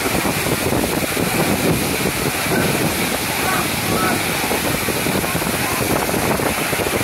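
Steady rushing and splashing of an artificial rock waterfall pouring into a swimming pool, with faint voices of swimmers behind it.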